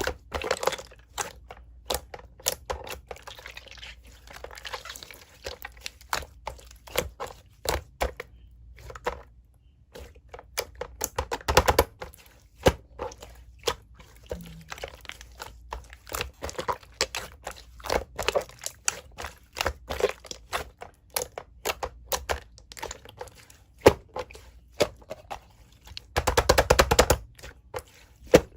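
Slime being pressed, stretched and folded by hand, making many irregular sharp clicking pops and crackles, with denser squishing bursts about twelve seconds in and again near the end.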